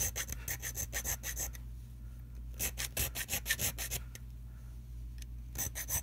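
Small file scraping in rapid back-and-forth strokes across a homemade padlock key cut from a milled-down key blank, filing small serrations into it. Three runs of quick strokes with short pauses between.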